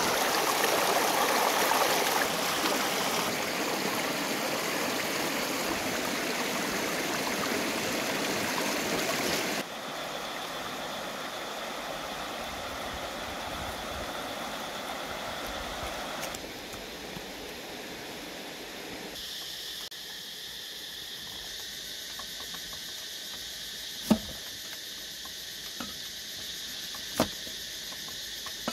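A shallow rocky stream rushing and splashing over stones, then, after a sudden drop in level about a third of the way in, gentler flowing water. In the second half a steady insect chirring takes over, with a few sharp knocks of a cleaver on a wooden chopping block near the end.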